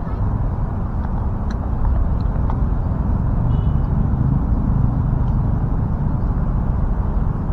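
Steady low rumble of outdoor background noise, with a brief high chirp about three and a half seconds in.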